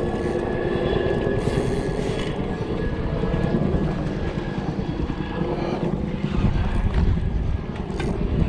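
A steady engine drone with a low rumble.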